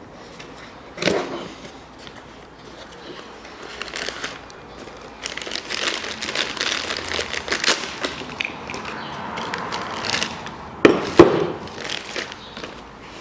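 Packaging of new steering parts being handled: crinkling and rustling with small clicks, densest in the middle. There is a knock about a second in and a louder one near the end.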